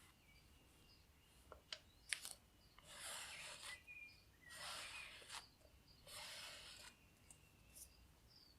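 Cotton T-shirt fabric rustling as it is folded and smoothed by hand: a few light clicks, then three soft swishes about a second and a half apart.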